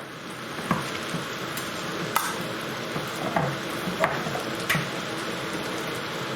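Chicken curry in base gravy bubbling and sizzling in a pan on high heat, a steady hiss with about five light clicks or knocks scattered through it.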